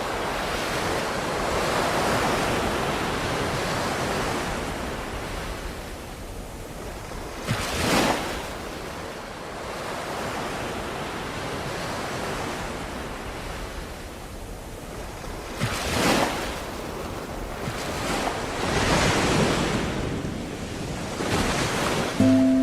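Ocean waves washing onto a shore, the surf swelling and breaking every few seconds, with sharper breakers about a third and two thirds of the way through. A few notes of music come in right at the end.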